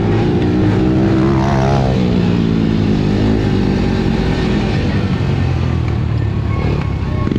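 Honda TRX90 youth ATV's small four-stroke single-cylinder engine running under the rider, revving up over the first couple of seconds, then dropping off about three seconds in and carrying on at lower revs.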